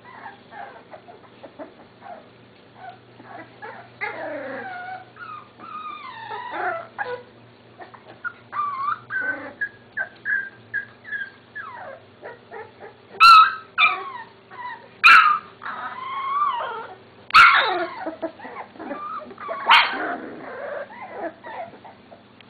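Boxer puppies whining and yipping as they play-fight, with a few sharp, much louder yelps in the second half.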